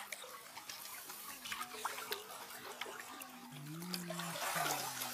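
Shallow muddy pond water splashing and sloshing as koi are handled by hand, with scattered small splashes. A faint voice joins in about halfway through.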